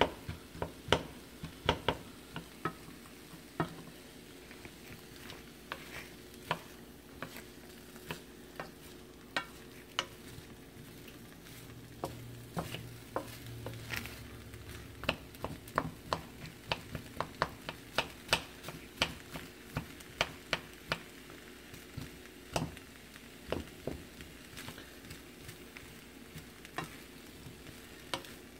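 A spatula stirring and scraping rice and vegetables around a nonstick wok, with irregular taps against the pan over a faint steady sizzle of frying.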